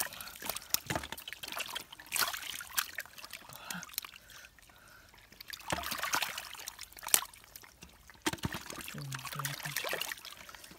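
Hands splashing and squelching in shallow muddy water while catfish writhe and thrash in it, irregular sudden wet splashes and slaps.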